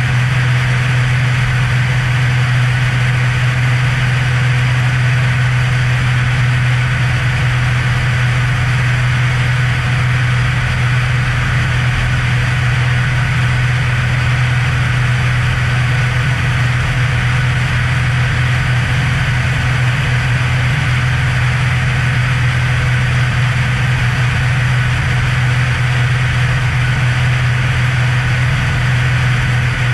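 Cessna Hawk XP's six-cylinder Continental IO-360 engine and propeller running steadily in flight, a constant loud drone with a strong low hum.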